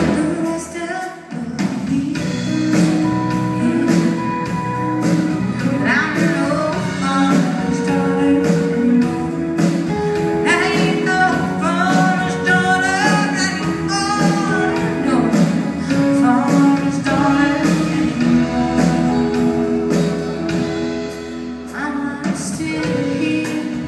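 A live band playing a song: acoustic and electric guitars, keyboard and drums keeping a steady beat, with singing at times.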